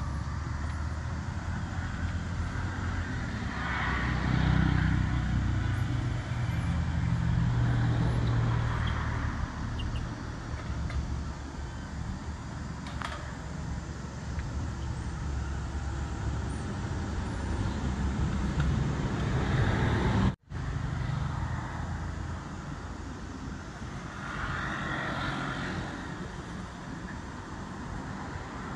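Road traffic going by: a steady low rumble that swells several times as vehicles pass. The sound drops out for an instant about twenty seconds in.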